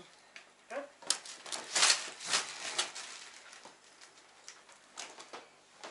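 Clothes and plastic packaging rustling as garments are picked up and unfolded by hand, a run of short crinkly rustles, loudest around two seconds in and quieter after.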